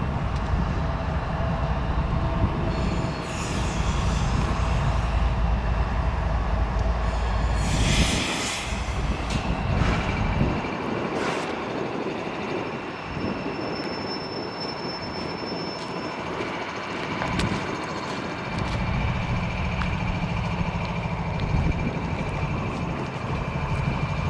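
CSX diesel locomotive rolling slowly past, its engine giving a steady low rumble while the wheels squeal in thin, steady high tones. A short hiss comes about eight seconds in.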